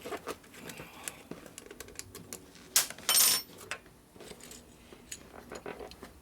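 Small metal tools and parts clinking and tapping during hand work, with a sharp click and then a brief, loud ringing metallic clink about three seconds in.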